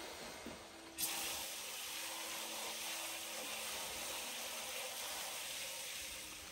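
Handheld electric mortar mixer (a drill-type paddle mixer) running steadily in a bucket of cement mortar, a whirring hiss of the motor and the churning mix.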